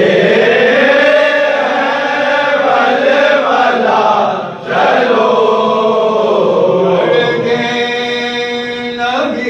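Men's voices chanting an Urdu noha, a Shia mourning lament, together in long drawn-out phrases, with a short break for breath about halfway through.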